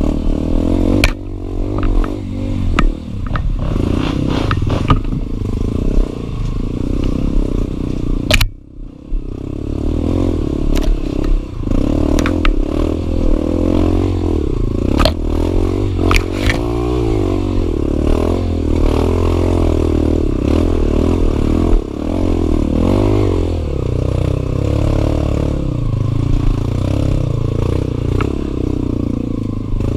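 Enduro dirt bike engine running, its pitch rising and falling with the throttle, with sharp knocks and clatter from the bike over rough ground. The engine sound dips briefly about eight seconds in.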